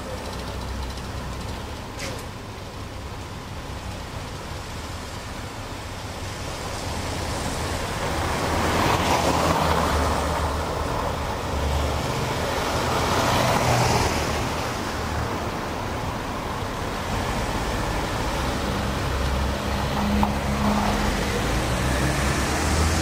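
Street traffic: cars passing on a wet street, with the loudest passes about nine and fourteen seconds in.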